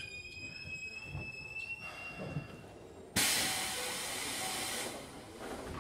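Keikyu 1500 series electric train with a Mitsubishi VVVF inverter: the inverter's high tones fade out, then a little past halfway a sudden loud hiss of compressed air from the train's pneumatic system lasts under two seconds.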